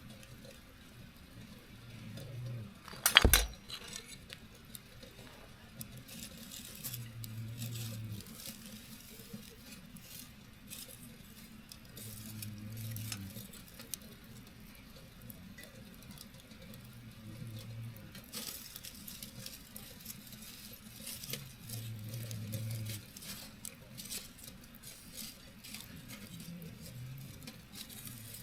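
Slow, steady snoring: a low snore about every five seconds. The crackle and small pops of a wood campfire run beneath it. A single sharp knock about three seconds in is the loudest sound.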